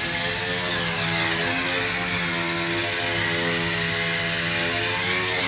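A power tool running steadily during car body prep work, with a strong hiss. Its hum shifts in pitch every second or two as it works.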